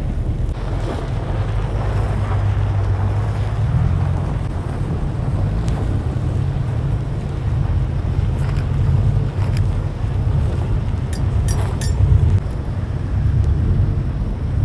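Steady low rumble of wind buffeting the microphone, mixed with car engine noise, with a few short clicks in the second half.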